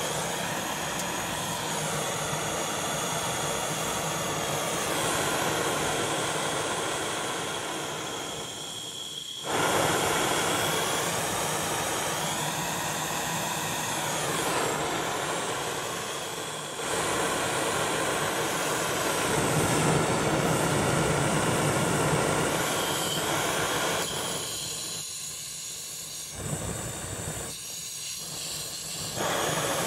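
Homemade gas brazing torch burning with a steady rushing hiss of flame. It gets abruptly louder about a third of the way in and again just past halfway, then turns weaker and uneven near the end, as the flame goes softer and yellow-tipped.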